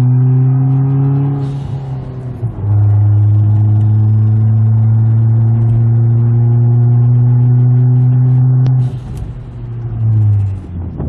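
Hyundai Genesis Coupe 2.0T's turbocharged four-cylinder engine running under load, with the newly fitted blow-off valve venting a short hiss each time the throttle closes: about a second and a half in and again near the nine-second mark.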